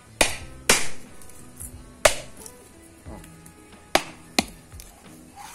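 Claw hammer striking a dry brown coconut held in the hand: five sharp knocks, unevenly spaced, with a few lighter taps between them. These are the blows that crack the hard shell open.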